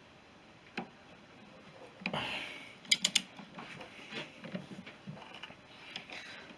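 Metal hand tools being handled on a workbench: a single click, a short scrape, then a quick run of sharp metallic clicks about three seconds in, followed by smaller knocks and rustles.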